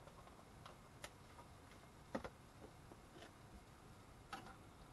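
Near silence broken by about four faint, scattered clicks and taps, the loudest a little after two seconds in: a utensil knocking against a frying pan as cream is stirred in.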